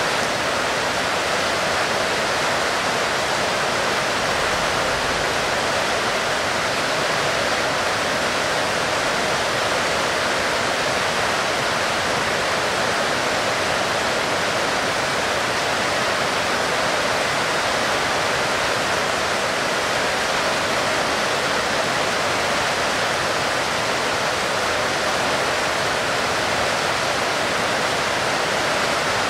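Heavy rain falling steadily: a dense, even hiss with no single drops or thunder standing out.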